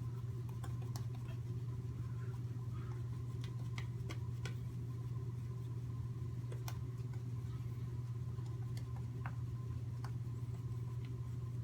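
Merkur 34c safety razor with a Polsilver blade drawn over the face in a light touch-up pass, giving faint scattered ticks as the blade cuts the last stubble. Under it runs a steady low hum.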